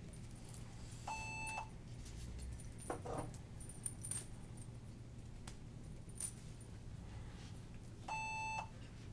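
Two short electronic beeps, each about half a second long and steady in pitch, about seven seconds apart. Between them come a few faint clicks and a brief rattle.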